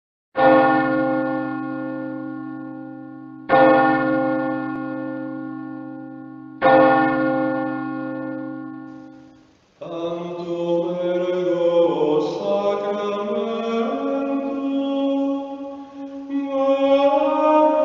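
A deep bell struck three times about three seconds apart, each stroke ringing out and fading. About ten seconds in, a slow chant of sustained voices begins and carries on.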